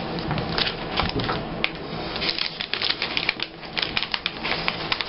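Scrapbook paper and borders being handled: an irregular run of quick clicks, taps and rustles.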